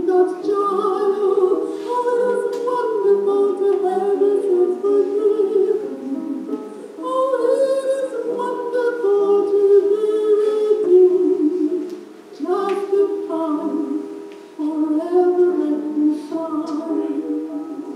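Music with singing, sung notes held and moving from one to the next, with no deep bass. The singing drops away briefly about twelve seconds in and again a couple of seconds later.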